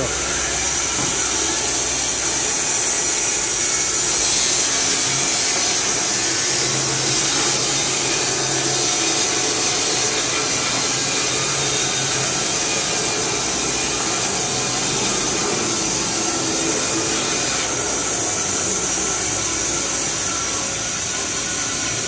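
Carpathian SM 110 manual band sawmill, driven by an 11 kW electric motor, running steadily while its band blade cuts lengthwise through a log as the saw head is pushed along the rails by hand. The sound is a steady machine noise with a strong high hiss.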